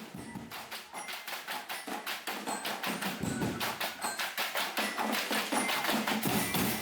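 Drumblek percussion: barrels and tin cans beaten in a fast, even rhythm, growing steadily louder.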